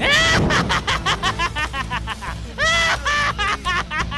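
A cartoon villain's voice laughing: a drawn-out cry followed by a rapid run of 'ha-ha-ha', and then the same again. Background music plays under it.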